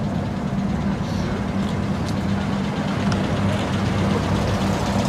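Engines of classic cars running at low speed as the cars drive slowly past, a steady low engine drone throughout.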